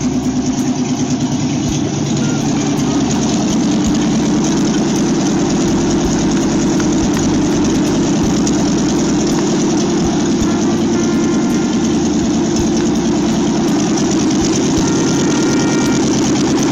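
A 1940 Ford hot rod's engine idling steadily.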